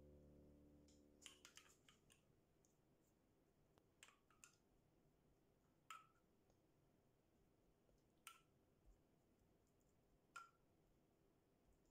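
Near silence with a handful of faint, sharp clicks and taps from kitchen utensils, as background music fades out at the start.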